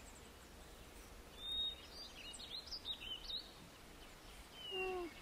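Small songbirds chirping faintly, a cluster of quick high calls and whistles in the middle, over a quiet outdoor background.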